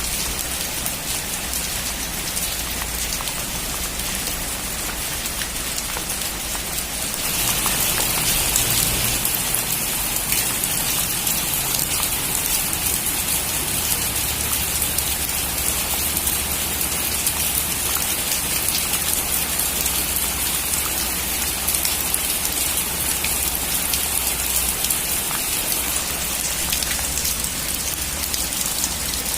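Heavy rain falling on a metal roof: a steady hiss of countless drops. About seven seconds in, the rain grows heavier and a little louder, then holds.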